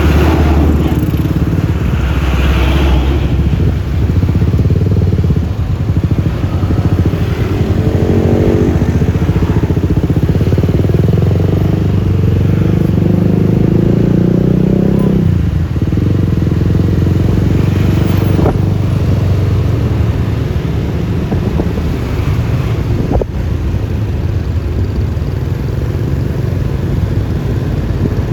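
Road noise from riding a Yamaha Lexi LX 155 scooter: its engine and tyres make a steady rumble, with other traffic around. A rising engine note comes about 8 seconds in, the rumble eases a little past the middle, and two short clicks follow later.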